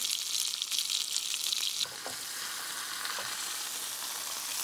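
Steak and diced potatoes sizzling in a frying pan on a camp stove, the potatoes finishing in the steak juice. The crackling sizzle drops abruptly to a softer, steadier hiss about two seconds in.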